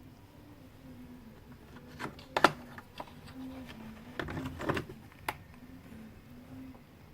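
Light clicks and taps of small hand tools on a phone's circuit board while it is cleaned. They are scattered, with the sharpest about two and a half seconds in and a short cluster around four and a half seconds.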